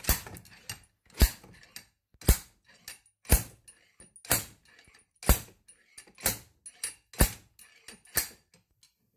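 Metal-on-metal strikes of a spring compressor's rod used as a slide hammer on a rusted, seized cone-shaped part of a Mini rear suspension trumpet held in a vise: nine sharp knocks about a second apart, with lighter clicks between them. The heated and quenched part does not come free.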